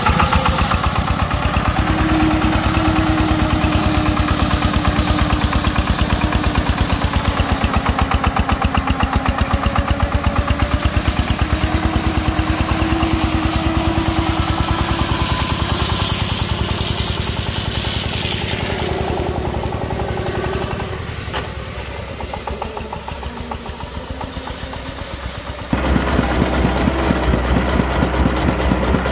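Single-cylinder diesel engine of a công nông three-wheeled farm truck running with an even, rapid beat. It turns a little quieter for a few seconds after the middle, then comes back louder and deeper near the end, heard close up.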